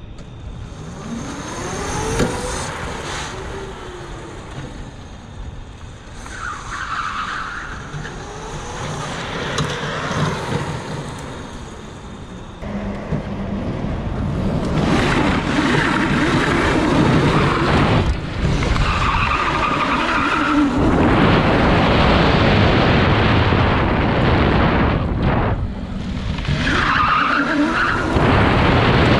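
Electric go-kart with an Electro & Co motor on a 72-volt battery, launching and sliding: the motor's whine rises and falls, and the tyres squeal briefly several times. About halfway through the sound turns louder and rushing, with wind on an onboard microphone as the kart drives, and the tyres squeal again.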